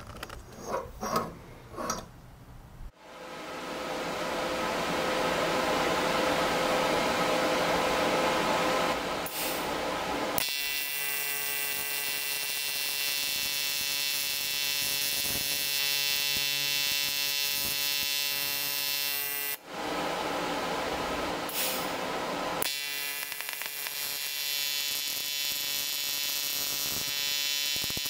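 TIG welding arc on an aluminium frame: a loud, even hiss for several seconds, then a steady electrical buzz, the AC arc typical of aluminium TIG. Near two-thirds of the way through the buzz breaks off into hiss for a few seconds, then resumes. A few light knocks of the aluminium parts in the jig come first.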